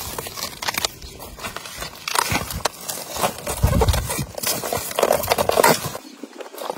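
Fresh banana-trunk sheaths being bent, tied with string and pressed together by hand around a fish: irregular crackling, rustling and scraping of the moist plant layers.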